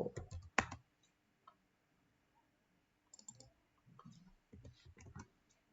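Scattered clicks of a computer mouse and keyboard: a cluster in the first second, then more a few seconds in, mixed with a few soft low thumps.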